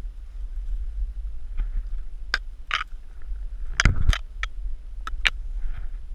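Climbing noise on a tree: a string of sharp scrapes, snaps and knocks from hands and shoes on bark and branches, loudest near the middle, over a steady low rumble.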